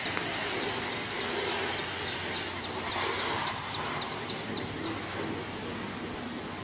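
Outdoor background noise, a steady rushing hiss, with short high chirps repeating about four times a second for a few stretches.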